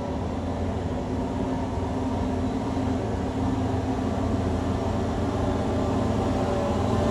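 Heavy vehicle's engine running with a steady low drone, growing gradually louder as it approaches.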